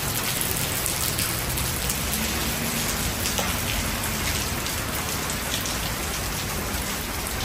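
Steady rain falling on wet pavement and puddles.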